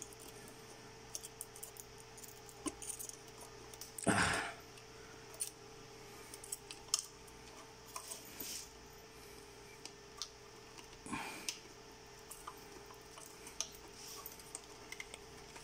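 Faint handling sounds of wiring being reconnected inside a ventilator: small clicks and rustles of plastic crimp connectors and a ribbon cable under the fingers, with one louder brief rustle about four seconds in and another near eleven seconds, over a faint steady hum.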